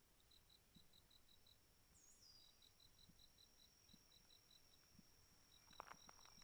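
Faint insects chirping: a regular train of high chirps about five a second, with a thin steady high-pitched trill setting in after about two seconds. A footstep or two near the end.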